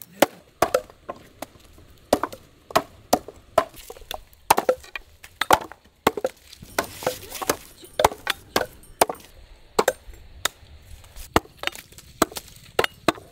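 Curved sickle blades chopping palmyra sprouts (palm tubers) against a wooden log: a steady series of sharp, irregular chops, about one to two a second.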